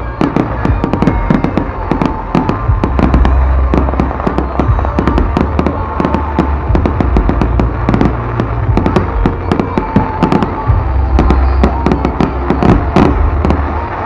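Aerial fireworks display: a dense, continuous run of bangs and crackling as many shells burst in quick succession, over a low rumble.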